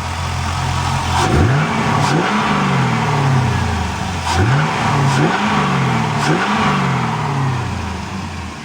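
2001 Chevrolet Camaro Z28's 5.7-litre (350 cu in) V8 idling, then revved in four quick blips. Each blip rises in pitch and falls back to idle.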